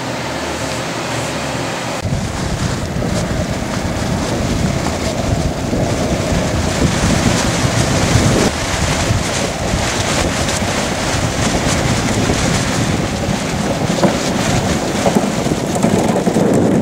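Wind buffeting an outdoor microphone: a steady, rough rushing noise that grows stronger about two seconds in.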